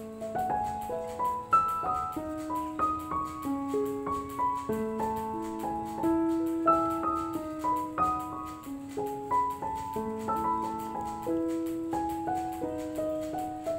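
Background music: a piano melody of single held notes at an even pace.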